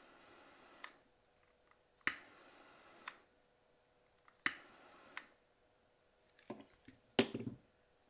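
Long-neck utility lighter being triggered over and over: a sharp igniter click every two seconds or so, each followed by a short fading hiss and a fainter click about a second later as the trigger is let go. Near the end, a few knocks as the lighter is set down on the desk.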